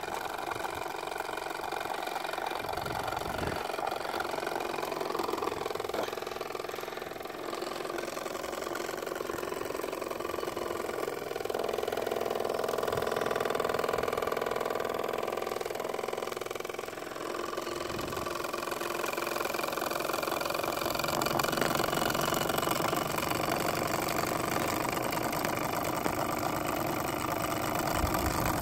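1950s Jean Comby UNIS toy stationary steam engine running steadily under steam, its boiler fired by a gas burner.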